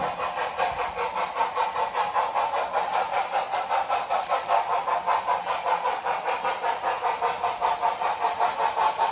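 TCS WOW Sound V4 steam sound decoder in a model steam locomotive playing steady, rhythmic exhaust chuffs through the locomotive's small speaker as it runs.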